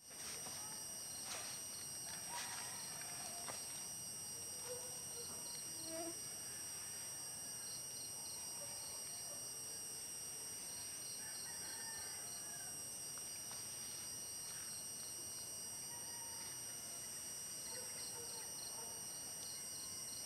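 Steady chorus of insects, crickets among them, trilling at several high pitches with a faint fast pulsing. A few faint clicks and short chirps are scattered through it.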